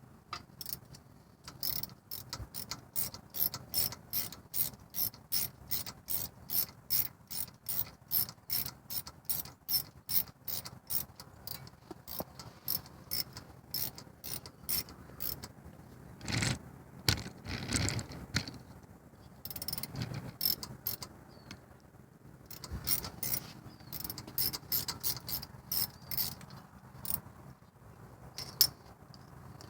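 Hand ratchet wrench with a 7 mm socket clicking steadily, a few clicks a second, as it backs out a bolt. The clicking stops briefly midway, where there are a couple of louder knocks, then resumes.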